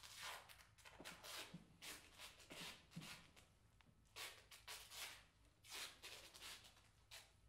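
Faint rustling and rubbing as cords are pulled to work a large string puppet: a series of soft brushing strokes, one or two a second.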